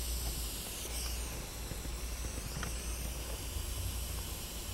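Steady hiss with a low hum underneath, with no distinct event: background noise while the wires are being soldered.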